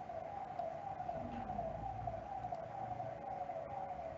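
A siren-like electronic wail: a quick falling tone that repeats about three times a second over a steady tone beneath it.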